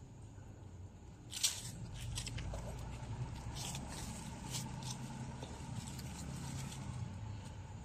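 Footsteps and handling noises on wet soil among plants: a sharp scuff about a second and a half in, then several short scrapes and rustles, over a low steady hum.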